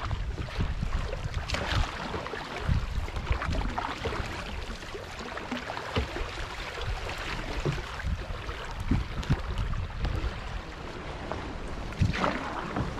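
A canoe moving down a fast, muddy river: water washing along the hull, with scattered paddle strokes, knocks and splashes and a louder splash about twelve seconds in. Wind rumbles on the microphone.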